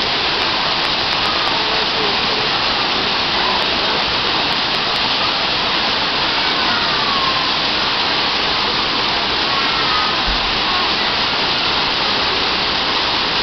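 Waterfall rushing as a steady, even wash of falling water.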